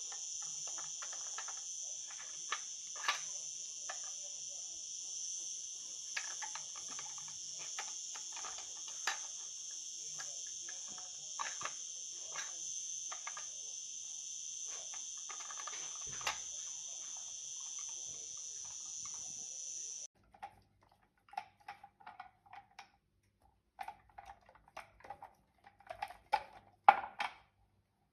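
Crickets chirping in a steady high drone under scattered sharp clicks and crunches of a dachshund eating. About twenty seconds in the crickets stop abruptly, and more irregular eating clicks and crunches follow, the loudest crunch near the end.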